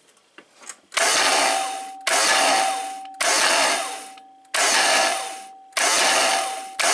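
Aerosol can of PB Blaster penetrating oil sprayed in six short squirts, each about a second long, with a thin whistle in each spray.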